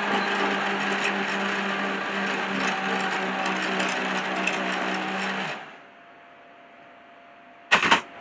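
Countertop blender motor running at a steady speed while it purees squash soup with coconut milk. The motor cuts off sharply about five and a half seconds in, and a brief knock follows near the end.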